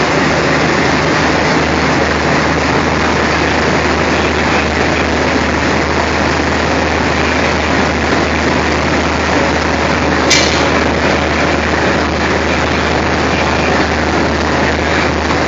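Diesel locomotive engine idling with a steady low hum, and a single sharp knock about ten seconds in.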